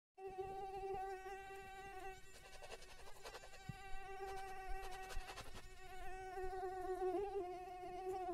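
Mosquito whining: a steady buzzing hum that wavers a little in pitch, with a few faint clicks around the middle.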